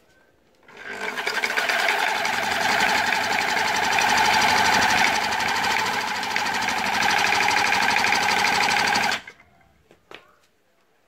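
Corded electric drill running at speed, cranking a modified mini bike pump through a wooden disc to inflate a motorbike tyre: a steady motor whine with a fast mechanical rhythm from the pump strokes. It starts about a second in and stops abruptly about nine seconds in.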